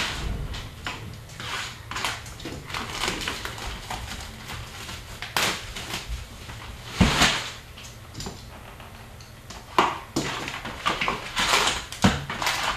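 A box of Upper Deck hockey card packs being opened by hand: crinkling wrappers, cardboard and cards handled in an irregular run of short rustles, crackles and taps, the loudest about seven seconds in and again near the end.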